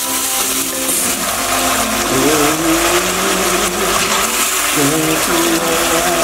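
Shrimp cooking in seasoned stock in a wok, with a steady bubbling hiss and a spatula stirring through them. A wavering pitched hum runs over it throughout.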